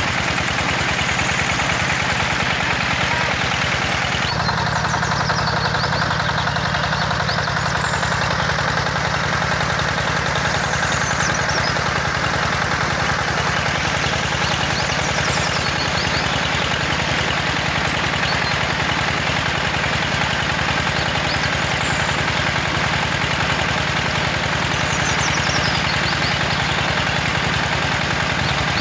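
Miniature single-cylinder gasoline engine running steadily, driving a small water pump by a belt, with water pouring from the pump's outlet hose into a pond. The engine's tone shifts slightly about four seconds in.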